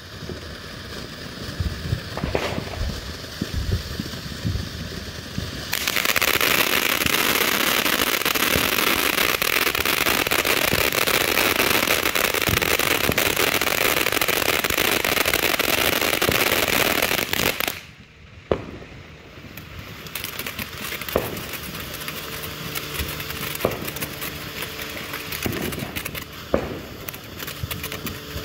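Atomic Salsa ground fountain firework spraying sparks: a steady hissing rush with scattered pops that turns much louder and denser, full of fine crackle, about six seconds in. It cuts off suddenly just past the middle, then carries on softer with occasional pops.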